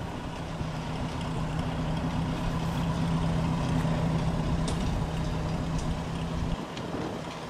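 An engine running steadily, a low even drone that breaks off briefly near the end.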